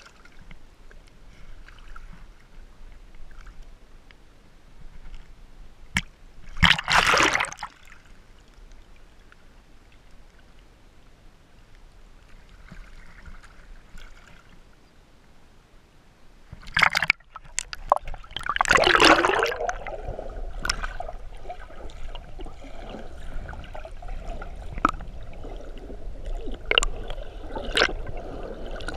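Seawater sloshing and gurgling against a GoPro's waterproof housing at the surface, with two loud splashes, about seven seconds in and again around seventeen to twenty seconds. After that comes a steady underwater wash with scattered sharp clicks as the camera goes under.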